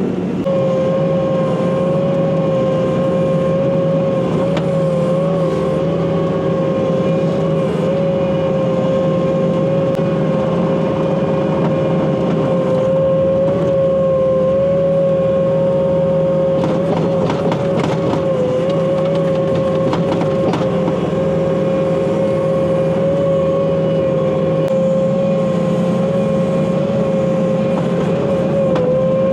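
Bobcat compact track loader's diesel engine running steadily under a constant high hydraulic whine, with a few brief knocks and clicks between about 17 and 21 seconds.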